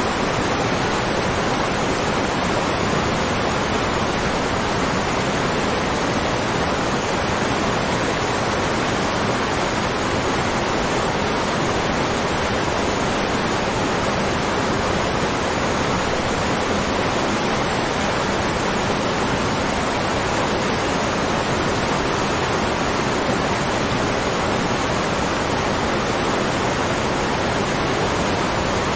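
Waterfall: a loud, steady, even rush of falling water.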